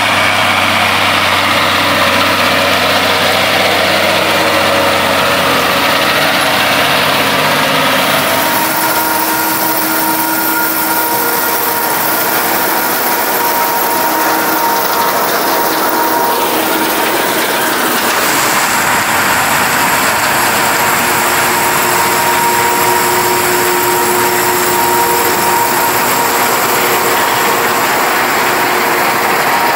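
Farm harvesting machinery, combine harvesters and tractors, running steadily under load: a constant mechanical hiss with steady whining tones. About eight seconds in the low engine hum drops away abruptly and the sound turns brighter and hissier.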